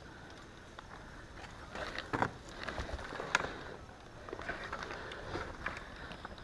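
Movement noise of a player on foot: footsteps and rustling gear, with a few irregular sharper knocks in the middle.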